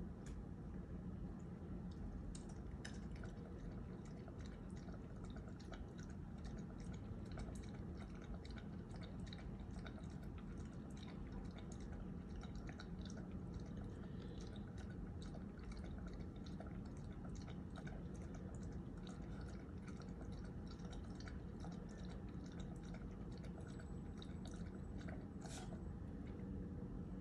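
A dog lapping water from a bowl in a long, continuous drink: faint, quick wet clicks of the tongue, the heavy thirst that diuretics for congestive heart failure bring on.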